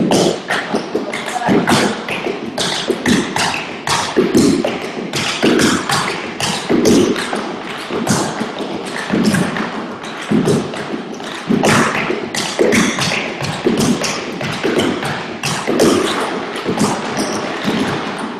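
Tap shoes striking wooden tap boards as several dancers run a combination together. It is a dense stream of taps with heavier accented strikes about once a second.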